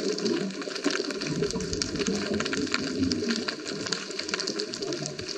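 Underwater sound picked up through a camera's waterproof housing: a dense, steady crackle of short clicks over a low churning water rumble.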